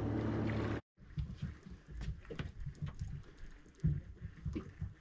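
A steady low hum, then after a brief dropout, irregular low knocks and sharp clicks from a fishing rod and reel being worked on a small boat as a hooked fish is reeled in.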